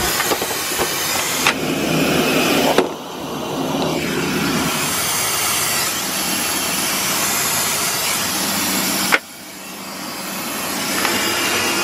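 Steady roar of jet airliner noise, engine and air-system hum heard at the aircraft door and then aboard. It drops off sharply about three seconds in and again near nine seconds, each time swelling back up.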